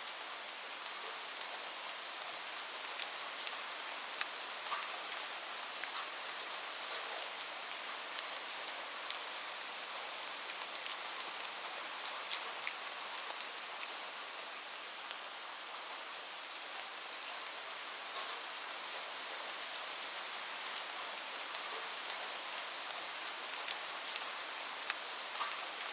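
Light rain falling steadily: an even hiss with scattered individual drops ticking sharply on a surface.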